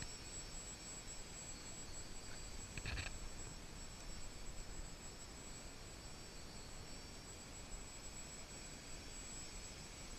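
Faint, steady high whine of an F450-frame quadcopter's motors and propellers hovering at a distance, with a short high chirp about three seconds in.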